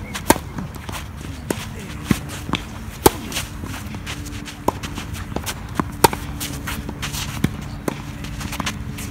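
Tennis rally: sharp pops of racquets striking the ball, one about every second or two, with softer ball bounces and the players' shuffling footsteps on the court between shots.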